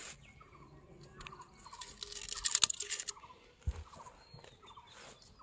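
Crackling and rustling close to the microphone, loudest for about a second near the middle, with a string of short repeated animal calls in the background.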